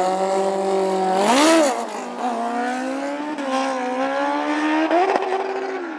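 Drag-racing motorcycles at high revs on the start line, their engine note sweeping sharply up about a second in as they launch. The engines then run hard, the pitch climbing and dropping back a couple of times with gear changes as they accelerate away.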